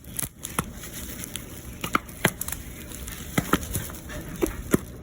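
Kitchen handling noises while a sandwich is dressed: about eight short, sharp clicks and taps at uneven intervals, over a steady background hiss.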